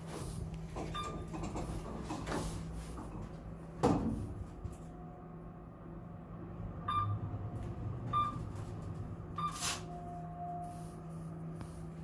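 Otis Elevonic 411M elevator stopping at a floor with its doors working: a steady low hum throughout, a sharp door knock about four seconds in, and a few short high beeps later on.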